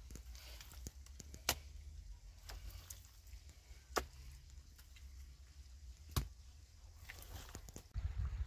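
Three sharp knocks, about two seconds apart, over a steady low rumble.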